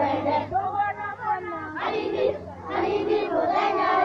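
A group of children singing or chanting a song together, the voices dipping briefly after about a second and then coming back in.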